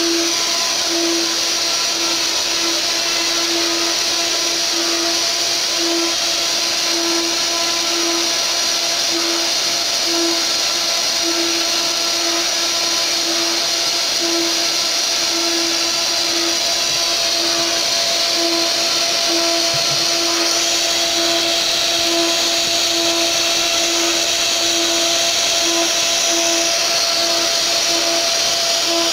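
Mini CNC router's spindle running steadily with a high whine while its 4 mm router bit carves a relief into a wooden board, with a lower tone that switches on and off about once a second.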